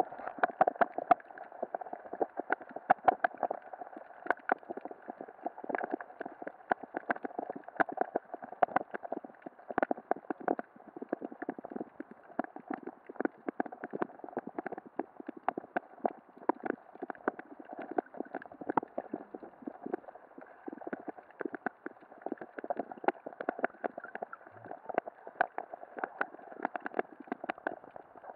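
Muffled underwater noise: a steady dull hum with many short, irregular clicks and taps, several a second.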